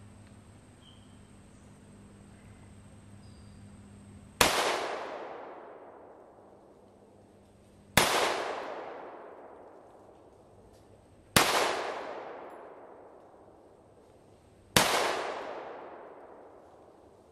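.223 full metal jacket rounds fired from a Ruger AR-556 rifle: four single shots about three and a half seconds apart. Each is a sharp crack followed by a long echo that fades over a few seconds.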